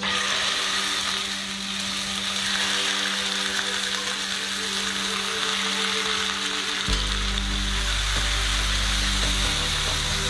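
Beef rolls sizzling as they sear in hot olive oil in a cast-iron skillet; the sizzle starts abruptly as the meat goes into the pan and then stays steady.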